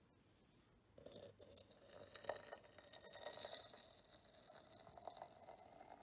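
Hot water poured from a small stainless pot into a ceramic teapot onto dried thyme leaves, starting faintly about a second in with small crackles and splashes.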